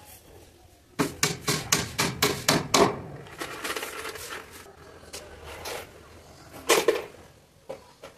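Hammer blows on a plywood frame, nailing its joints: a quick run of about eight sharp strikes, followed by quieter handling sounds and one louder knock later on.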